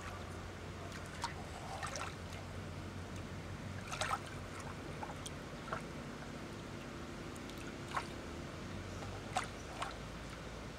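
Lake water lapping at the camera's waterline, with small irregular splashes and plops over a steady wash and a low hum.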